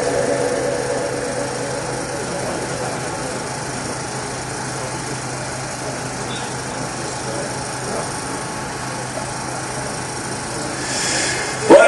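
Pause in a live Quran recitation over a loudspeaker system: a steady hum and hiss with the faint murmur of the listening crowd. The reciter's amplified chanting fades out at the start and comes back in suddenly near the end.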